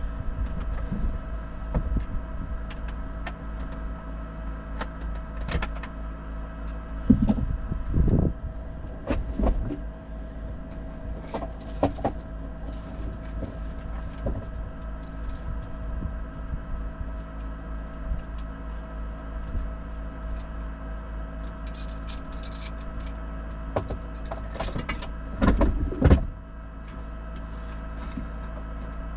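Off-road 4x4 engine running steadily, with scattered knocks and rattles over it and a louder cluster of clunks about 7 seconds in and again near the end.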